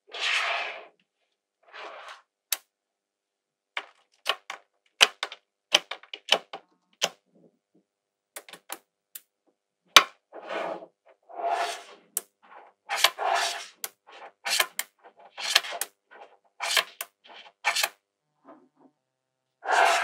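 Small magnetic metal balls clicking sharply as rows of them snap together, mixed with short rattling rubs lasting about a second as strips of balls are rolled and pressed into place on a hard table. The clicks come irregularly, sometimes two or three in quick succession.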